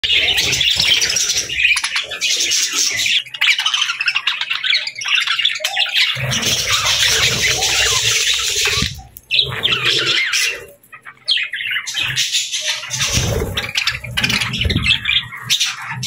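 A flock of budgerigars chattering and chirping in a dense, busy warble, with a short lull about two-thirds of the way through and a low rumble underneath at times.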